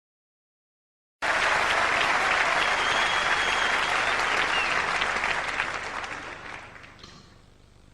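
Applause from a crowd, starting abruptly after a second of silence, with a faint whistle in it, then fading away over the last couple of seconds.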